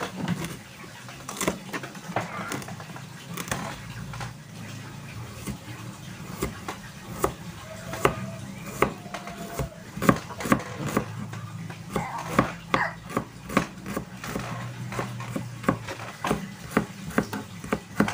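Knife chopping on a plastic cutting board: quick, irregular taps as chilies and shallots are sliced.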